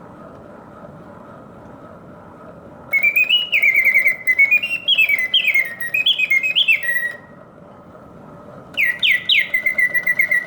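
Vintage Karl Griesbaum double singing-bird cage automaton singing: its bellows-driven piston whistle gives warbling bird song of quick notes that leap up and slide back down. A faint steady hum comes first, the song starts about three seconds in, breaks off for under two seconds, then resumes near the end.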